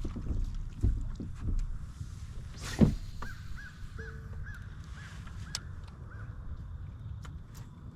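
A bird calling over and over in short, clipped notes from about three seconds in, over a low wind rumble on the microphone. A single brief, loud swish comes just before the calls start.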